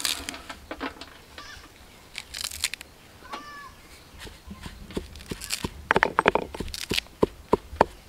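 Stone pestle pounding fresh mint leaves in a stone mortar: a run of quick knocks, about four a second, starting a few seconds in, as the leaves are crushed into a green paste. Before it, leaves rustle and a few soft knocks as they are dropped into the mortar.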